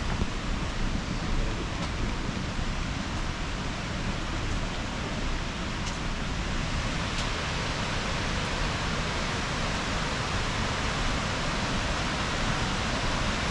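River waterfall rushing steadily, an even wash of falling water.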